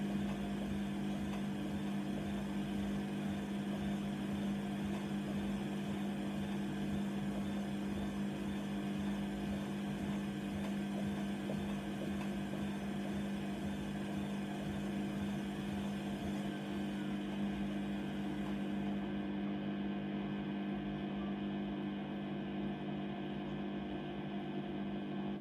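Hoover Nextra washer dryer running its wash cycle: a steady motor hum with a strong low tone and a stack of overtones, unchanging throughout.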